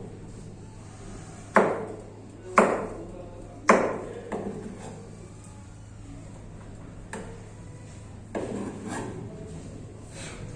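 Kitchen knife chopping on a cutting board while dicing vegetables: three sharp, loud chops about a second apart, then a few fainter knocks spaced out over the rest of the time.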